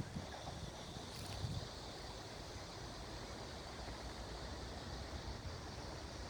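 Steady outdoor background noise: a low rumble under a soft hiss, with a few brief low thumps in the first second and a half.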